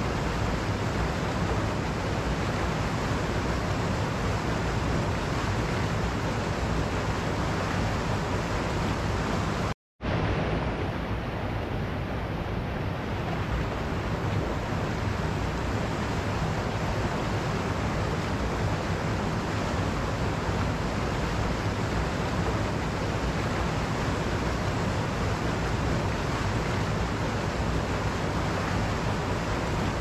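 Mountain stream rushing over rocks in whitewater cascades, a steady even rush of water. The sound cuts out for a split second about ten seconds in.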